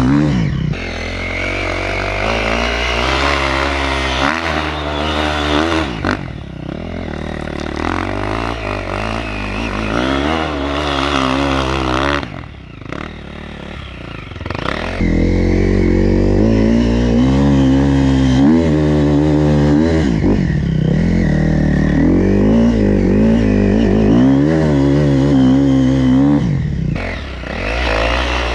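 Small dirt bike engine revving up and down as it rides through snow, its pitch rising and falling again and again. It drops quieter for a couple of seconds about halfway through, then comes back loud.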